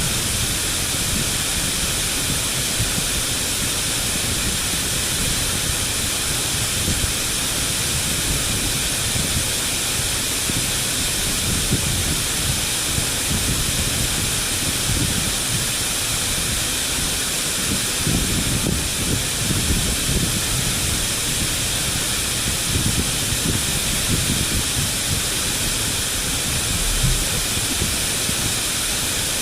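Waterfall: water rushing steadily, with a low uneven rumble beneath the hiss.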